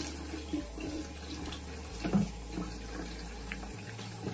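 Water running from a tap into a bathroom sink while someone washes their face, with a few louder splashes about two seconds in.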